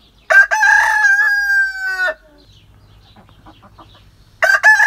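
A rooster crowing twice: one full crow of about two seconds that drops in pitch at the end, and a second crow starting near the end. Faint hen clucking in between.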